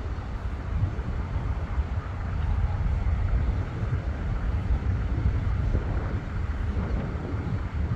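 Low, steady rumble of a distant approaching locomotive, mixed with wind buffeting the microphone.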